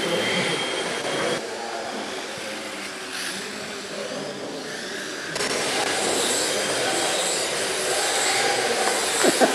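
Small radio-controlled toy motorcycles running on a carpet track, their electric motors giving a steady whine and hiss. The sound changes abruptly about a second and a half in and again about five and a half seconds in.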